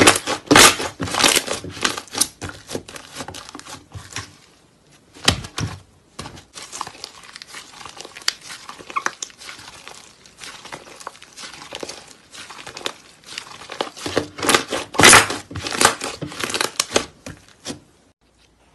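White foamy slime being squeezed, stretched and pressed by hand, giving dense runs of crackling, squishing pops. It is loudest near the start and again about three quarters of the way through, with a quieter stretch and one heavier pop in between.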